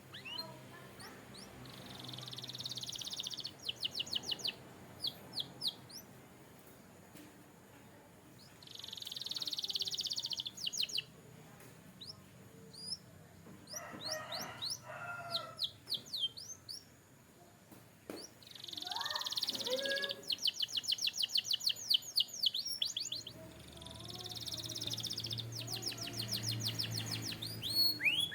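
A canary singing in phrases of buzzy rolls and fast runs of quick repeated notes, with short pauses between them. A couple of lower, different-sounding calls come in the pauses.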